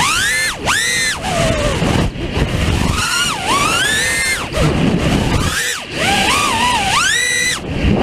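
The four T-motor F60 brushless motors of an FPV racing quadcopter on a 5S battery, spinning 5-inch tri-blade propellers and heard through the onboard camera's microphone. Their whine climbs steeply and drops back with each punch of throttle, several times, over a steady rushing hiss.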